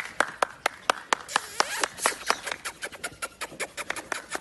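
A rapid, irregular run of sharp clicks, several a second, with a faint rubbing hiss between them.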